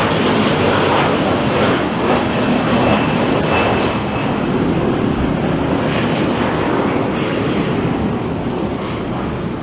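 Jet engine roar from a departing Airbus A330-300's Rolls-Royce Trent 700 turbofans at take-off thrust: a loud, rushing noise that slowly fades.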